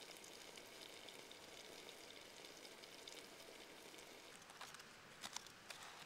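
Water simmering in a lidded stainless steel pot over a campfire: a faint, fine fizzing hiss, with a few sharp crackles in the last couple of seconds.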